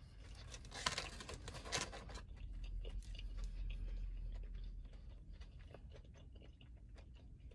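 Mouth-closed chewing of a potato-crusted Korean corn dog. Crisp crunching is clearest about one to two seconds in, then fades to quieter scattered chewing.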